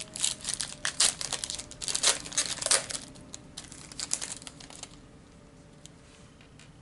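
Foil wrapper of a trading card pack crinkling and rustling as it is handled and pulled off the cards. The rustle is dense for about three seconds, then fades, with a few faint ticks near the end.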